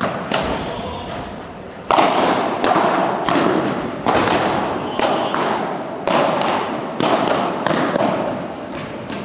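Padel rally: the ball is struck back and forth with padel rackets. A dozen or so sharp hits come every half second to second, the loudest starting about two seconds in, each ringing on in the hall's echo.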